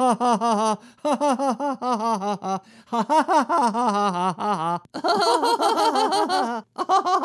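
Cartoon character voices laughing in rapid 'ha-ha-ha' runs, about five bursts, with several voices laughing together near the end.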